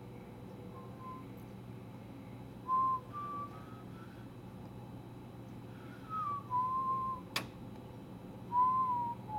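A person whistling a slow tune in a few short and held notes with gaps between them, over a steady low hum. A single sharp click sounds about seven seconds in.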